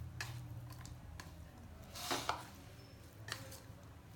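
Boiled instant noodles being mixed with chopped vegetables and gram flour in a bowl: soft squishing with a few light knocks, the loudest about two seconds in.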